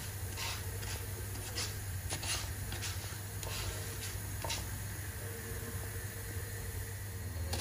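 Orzo toasting in hot olive oil with a soft steady sizzle, while a wooden spatula stirs it and scrapes the pan now and then in short strokes, over a steady low hum.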